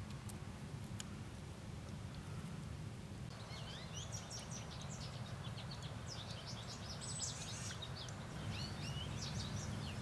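Steady low rush of a small run-off stream and waterfall. From about three seconds in, a bird calls in a dense run of rapid, high chirps.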